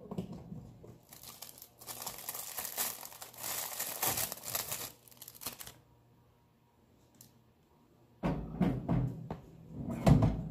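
Foil Pop-Tart wrapper being torn open and crinkled for several seconds. Near the end come a few knocks and thumps.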